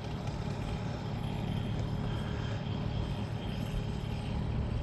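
A vehicle engine idling, a steady low rumble with no revving.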